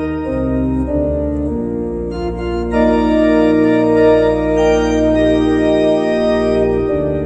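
Organ played in sustained full chords over a deep pedal bass, the harmony moving every second or two.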